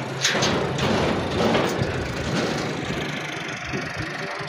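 Diesel tractor engine idling steadily, with a couple of sharp clicks in the first half-second.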